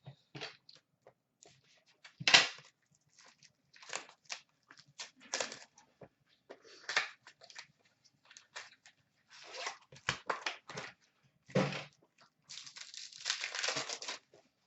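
Hockey card box and packs being handled and opened: scattered rustling and crinkling of wrappers and cardboard with light clicks and knocks, and a longer tearing rustle near the end.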